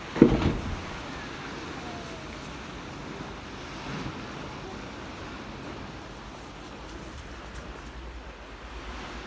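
Steady wind and surf noise, broken by a sudden loud thump about a quarter second in and a smaller one about four seconds in.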